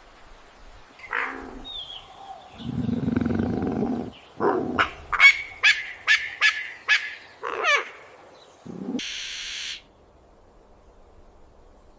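Elegant trogon calling: a run of about ten short repeated notes, some three a second, between about four and eight seconds in. It comes after a rougher low sound and is followed by a brief hiss about nine seconds in.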